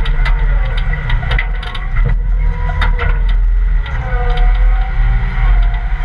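Caterpillar 226 skid steer's diesel engine running hard while the bucket pushes dirt, with frequent clanks and rattles of the bucket and loose stones. A whine dips and rises in pitch about four seconds in.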